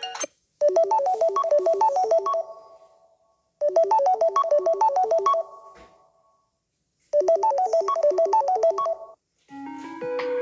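Samsung Galaxy S10 ringtone playing: a quick, bouncing run of notes about two seconds long, repeated three times with a pause between each. Near the end another ringtone begins, with lower, longer notes.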